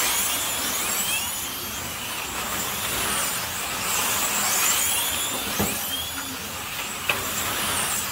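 Slot cars' small electric motors whining in repeated rising sweeps as the cars race past, one after another, over a steady hiss. A short knock and a sharp click come in the second half.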